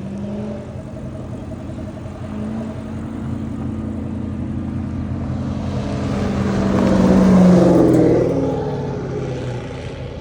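Car engine and exhaust running with a steady drone that swells to its loudest about seven to eight seconds in, the pitch gliding there, then falls back.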